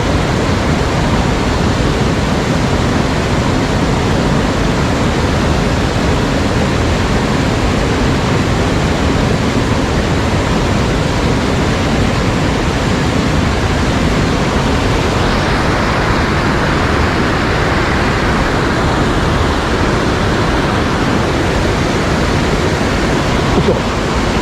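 Rushing water of a mountain headwater stream, a steady loud wash of noise that gets somewhat brighter about fifteen seconds in.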